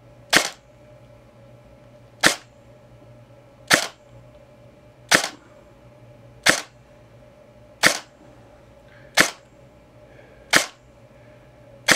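Airsoft electric gun (AEG) firing single semi-auto shots into a chronograph, a steady series of sharp cracks about one every one and a half seconds, eight or nine in all.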